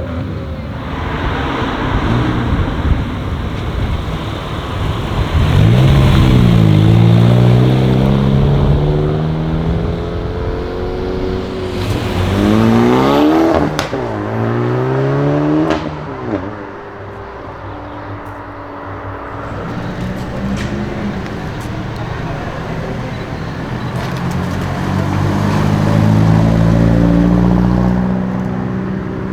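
Hyundai i30 N engines revving hard and accelerating, the engine note climbing and dropping several times, with a long rising pull near the end. A few sharp exhaust pops come in the middle.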